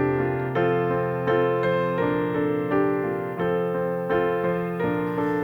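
Keyboard playing the song's intro in piano chords, struck about every half to three-quarters of a second and left to ring out over held bass notes.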